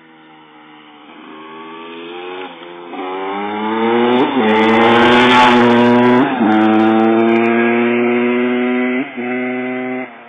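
Honda CR250 two-stroke motocross bike accelerating hard along the lane. Its engine pitch climbs and drops back several times as it shifts up through the gears. It grows loud over the first few seconds, stays loud, then falls away near the end.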